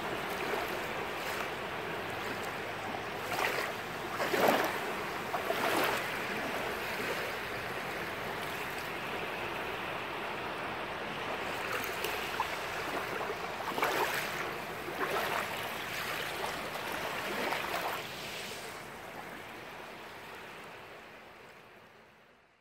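Steady rushing noise with a few brief louder swells, fading out over the last few seconds.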